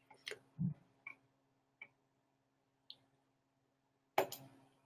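A few faint, scattered clicks and ticks over a low steady hum, with a short low thump about half a second in and a brief louder burst of noise near the end.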